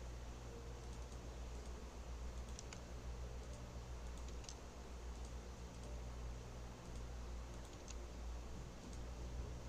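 Faint, scattered clicks of a computer keyboard and mouse over a steady low hum.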